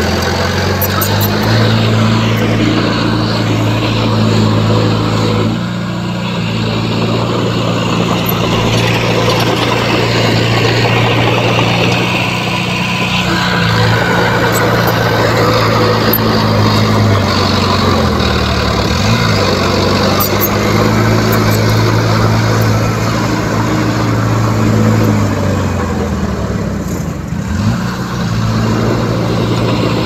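Small crawler bulldozer's diesel engine running steadily under load as it pushes fill, its revs dipping briefly and recovering twice in the second half.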